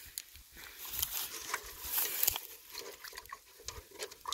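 Hand-held rocks being swished and rubbed in a bucket of muddy water to wash them, with scattered scuffs and clicks.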